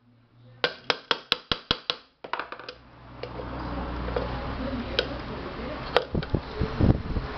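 Claw hammer striking a steel chisel held against the rim of an aluminium pressure-cooker lid: a quick run of about seven sharp metallic blows in the first two seconds, then a few scattered blows later. The rim is being opened out so the rubber sealing gasket will fit the groove. A steady rushing noise sits underneath from about three seconds in.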